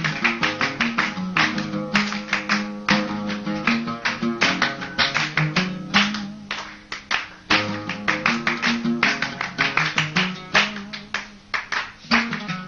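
Instrumental Somali qaraami music played on the oud (kaban): a fast, unbroken run of plucked notes, with no singing.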